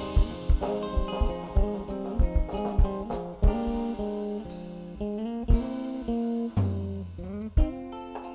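Instrumental band music: guitar notes over a drum kit, with no singing.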